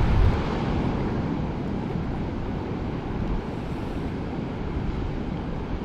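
Wind buffeting the microphone over sea water in the reef shallows, a steady rumbling rush with a heavy gust right at the start that then eases to an even level.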